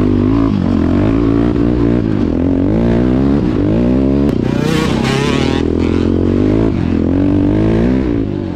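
KTM EXC-R 530's single-cylinder four-stroke engine running under load, the revs rising and falling over and over as the throttle is worked.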